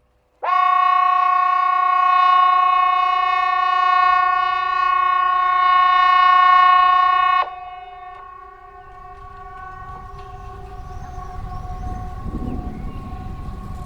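Hesa Fredrik civil defence alarm siren sounding a loud, steady, horn-like chord that starts abruptly about half a second in and cuts off suddenly about seven seconds later. The siren tone then carries on more faintly over a low rumble.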